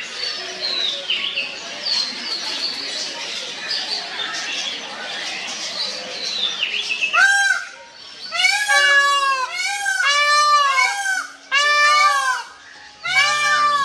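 Small birds chirping busily for the first half. About halfway through, a peacock starts a rapid series of loud, wailing calls, each rising then falling in pitch, in quick runs with short breaks between them.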